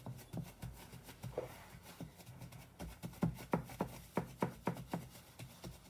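Gloved hand patting and pressing a buttery besso (roasted barley flour) mixture flat in a glass dish: a run of soft pats, about three a second, getting louder about halfway through.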